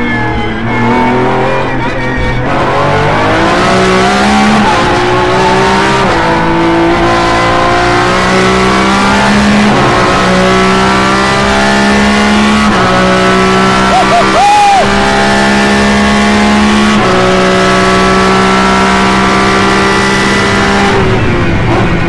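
Lamborghini Essenza SCV12's naturally aspirated V12 heard from the cockpit under hard acceleration. The engine note climbs and steps through several upshifts, then falls away near the end as the car slows.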